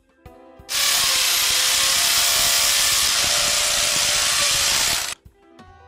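Bosch electric drill with a masonry bit drilling a pilot hole into a tiled wall. It runs steadily for about four seconds with a high whine, then stops.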